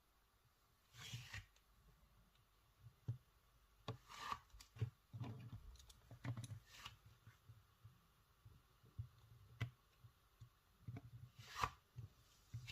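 Quiet handling sounds of plasticine sculpting: scattered light taps and clicks, with a few short rubbing or scraping sounds of tools and fingers working the clay on the work surface.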